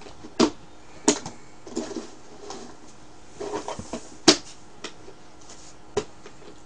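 Handling noise of a disposable plastic glove and paper: a few sharp clicks and short crinkling rustles, the loudest click a little past the middle.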